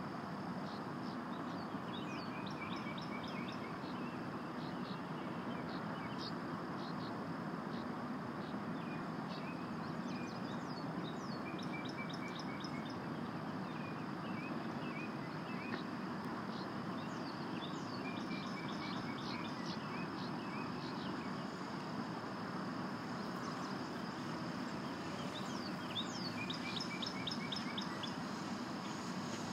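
Small birds chirping and calling over a steady outdoor background noise. Runs of quick notes repeat every few seconds, and a faint steady high tone sits under them.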